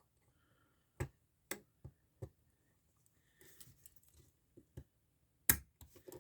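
Sharp metal clicks and taps from handcuffs and a thin shim being handled, with a soft scraping rustle midway; the loudest click comes near the end.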